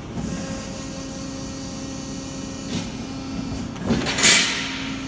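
Piranha 175-ton CNC press brake cycling a bend on 10-gauge steel: a steady machine hum runs throughout, with a click partway through and a loud rushing hiss about four seconds in.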